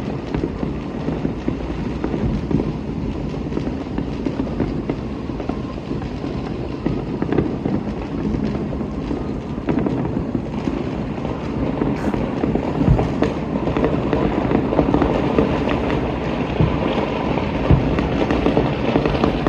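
Many distant fireworks and firecrackers going off across a city at once: a dense, continuous crackle of overlapping pops, with a few louder bangs in the second half.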